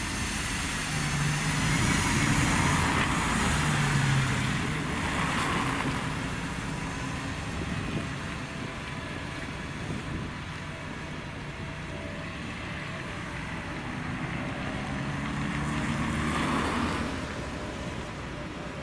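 Volgabus city bus driving past and pulling away, its engine humming over tyre and road noise, which fade after the first few seconds. About three-quarters of the way through, another vehicle passes close and the sound swells again.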